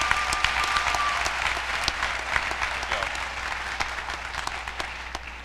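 Audience applauding, a dense patter of many hands clapping that gradually dies away.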